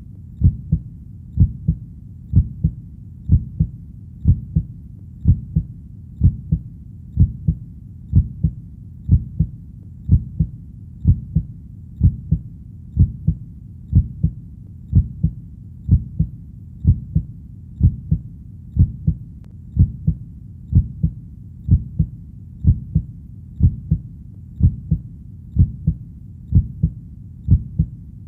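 A human heartbeat beating steadily at a slow, even pace, about one beat a second, each beat a deep double thump (lub-dub), over a faint low background rumble.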